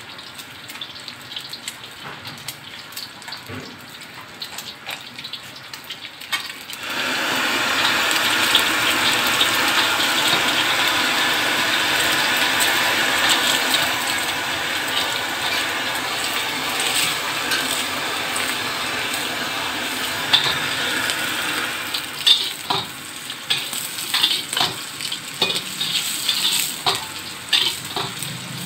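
An egg frying in hot oil in a steel wok: a soft sizzle that turns suddenly much louder about seven seconds in and stays steady. In the last several seconds the sizzle eases and a metal spatula clicks and scrapes against the wok as it is worked under the egg.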